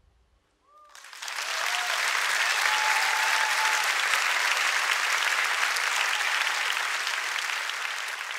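Theatre audience applauding at the end of a song, breaking out about a second in after a brief silence, with a few cheers as it begins, then fading near the end.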